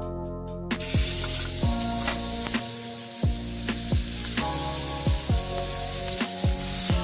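Ground beef burger patty sizzling in a hot stainless steel frying pan, the sizzle starting suddenly about a second in as the patty goes into the pan and then running steadily. Background music with a deep repeating bass beat plays under it.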